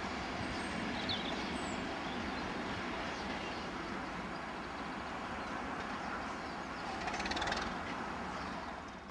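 Diesel multiple unit running away along the track, a steady rumble of engine and rail noise, with a few short bird chirps in the first two seconds and a brief rattling swell about seven seconds in.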